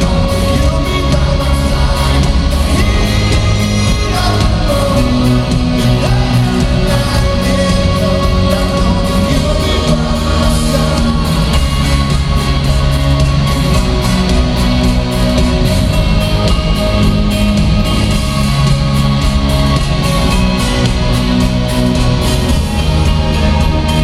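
Live rock band playing through an arena PA: electric guitars, bass and drums, with singing, loud and steady throughout. The sound echoes around the large hall.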